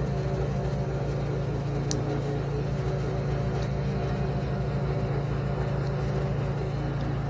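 A steady mechanical hum with a fast low throb, unchanging throughout, and a faint click about two seconds in.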